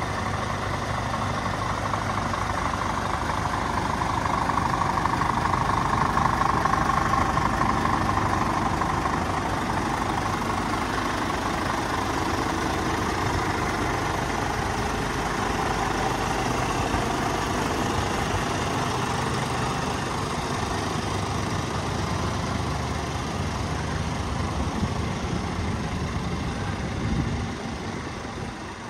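Scania P410 tipper's diesel engine idling steadily, a continuous low hum that drops in level near the end.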